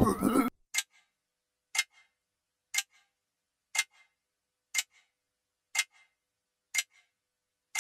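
A clock ticking slowly, one sharp tick each second, each followed closely by a fainter click. A burst of music ends about half a second in.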